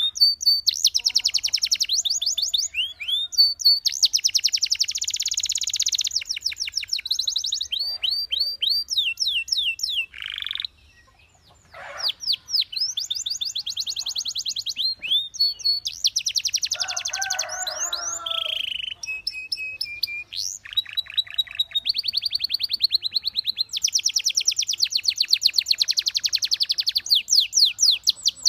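Belgian canary singing: long, rapid trills and rolls of high, repeated notes with quick sweeping phrases between them. The song breaks off briefly about ten seconds in.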